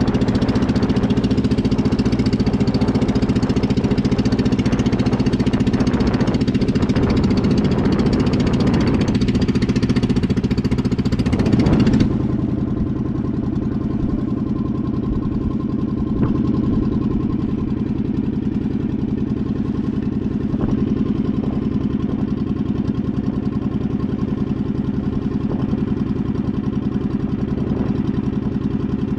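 A small boat's engine running steadily while under way. About twelve seconds in, the sound changes abruptly and becomes duller, with less hiss.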